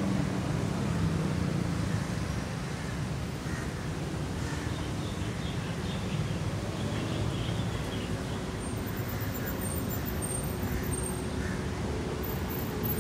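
City road traffic: a steady low rumble of cars and motorbikes idling and moving along the street, a little louder in the first couple of seconds.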